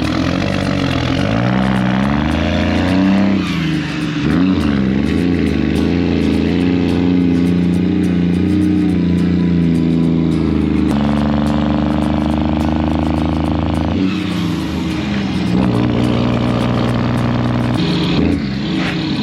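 A diesel engine running under load, its pitch rising and falling several times as its speed changes and holding steadier through the middle.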